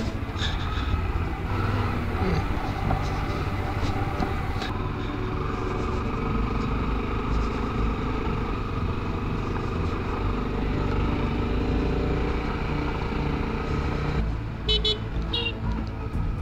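Honda XRE300 single-cylinder motorcycle engine running steadily while riding, with two short high-pitched chirps near the end.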